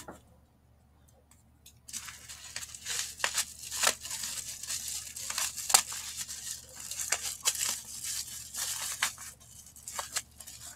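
Plastic bubble wrap crinkling and crackling as scissors cut and pull it away, starting about two seconds in, with many sharp snips and rustles.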